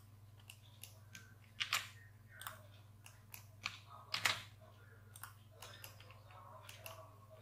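Irregular clicks and taps of a computer mouse and keyboard, well over a dozen, the loudest about two and four seconds in, over a steady low hum.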